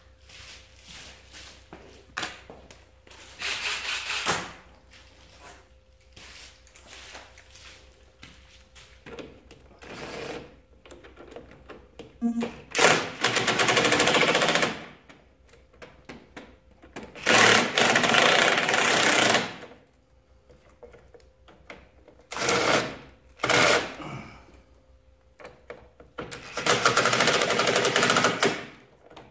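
Cordless DeWalt impact driver hammering as it runs bolts in and tightens them, in about six bursts of half a second to two seconds each, with quieter clinks of the socket and tools in between.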